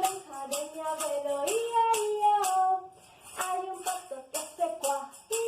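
Children's song with a sung melody over a steady tambourine beat, dipping briefly a little past the middle.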